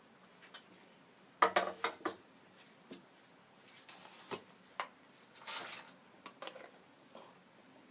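A metal spoon clinking against a steel bowl and spice containers: a quick cluster of knocks about a second and a half in, then scattered single taps and a short rustling scrape around the middle.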